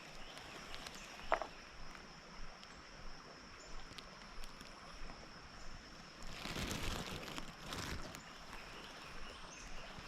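Quiet creek-side outdoor ambience: a steady high-pitched drone, a short chirp about a second in, and rustling with small clicks, loudest about six to eight seconds in.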